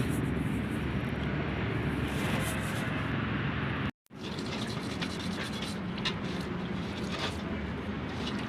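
Steady background noise with scattered light clicks and scrapes, typical of metal parts being handled at a workbench. The sound drops out for a moment about four seconds in.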